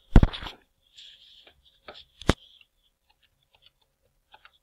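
A short rustling handling noise near the start, then two light taps about two seconds in, the second a sharp click.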